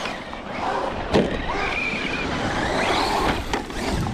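Electric RC truck motor whining, rising and falling in pitch as it is throttled. A sharp knock about a second in is the loudest moment.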